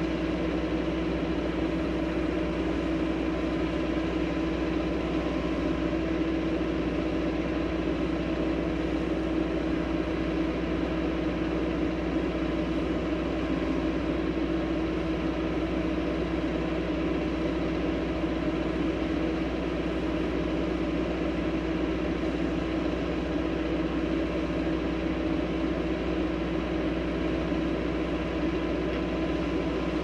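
Backhoe's diesel engine running steadily at a constant speed, with no knocks or clanks.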